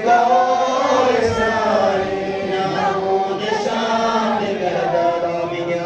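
A congregation chanting together, many voices on the same phrase.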